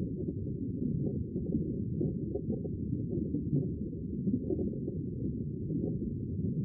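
Steady, muffled low rumble of water noise from an underwater action camera's microphone sealed in its waterproof housing, with no high sounds at all.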